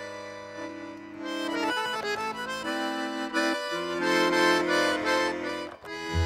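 Accordion playing a Chilean cueca tune: held chords at first, then a run of quick melodic notes from about a second in.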